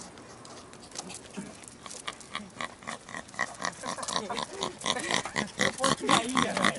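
Small terrier-type dog making a quick run of short pig-like grunts, several a second, growing louder toward the end as it runs up.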